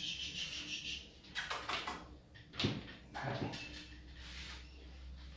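Grooming scissors snipping a dog's fine, cottony coat: a quick run of short crisp snips about one and a half seconds in, then single snips and light knocks every second or so.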